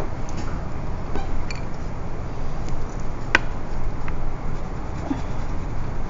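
Room tone with a steady low hum, a few faint ticks, and one sharp click about three and a half seconds in.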